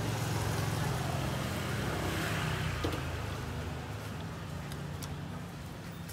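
A motor vehicle's engine running nearby, a steady low hum that slowly fades, over street background noise, with one light click about three seconds in.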